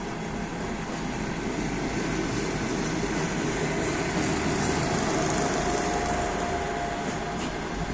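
Passing train rolling by on the rails with a steady rumble of wheels and coaches. A faint thin whine is heard briefly in the second half.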